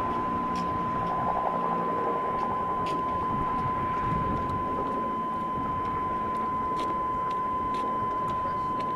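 Steady noise of a car idling, heard from inside its cabin, with a constant high-pitched tone over it and a few faint clicks.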